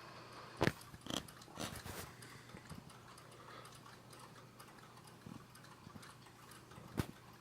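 A sleeping woman snoring, heard here as a few short, irregular snorts and clicks, the loudest about half a second in and a cluster about a second later, over a faint steady hum.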